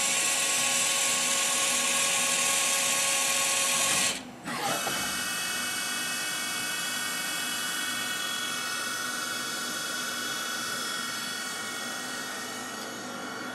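Tsugami BU20SY CNC Swiss-type lathe running with a steady high-pitched machine whine made of several steady tones. It cuts out briefly about four seconds in, then resumes a little quieter with a changed set of tones.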